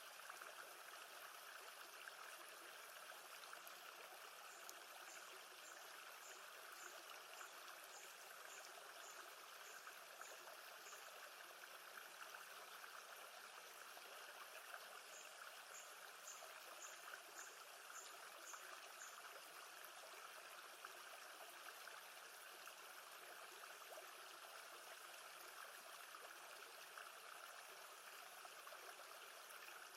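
Faint, steady sound of gently moving lake water, trickling and lapping. Twice, a run of short high chirps repeats at about two a second.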